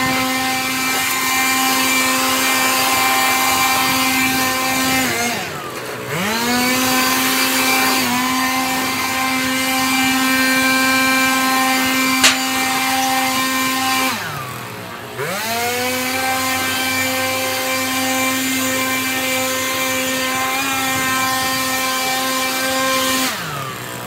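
Handheld leaf blower running at full speed with a steady whine. It winds down three times as the trigger is let off, about five, fourteen and twenty-three seconds in, and spins back up within about a second the first two times. One sharp click about twelve seconds in.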